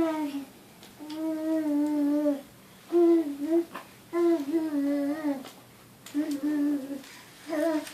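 A 13-month-old toddler making engine noises with his voice: a string of drawn-out hummed sounds, each up to about a second and a half long, held at a fairly steady pitch with short gaps between.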